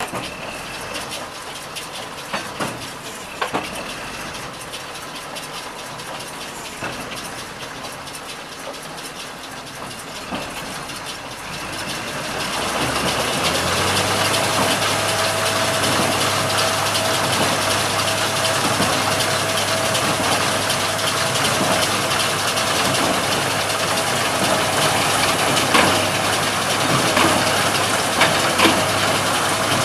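Tractor engine and Hesston 4790 square baler running. About twelve seconds in the sound grows louder into a steady hum, with a few sharp knocks.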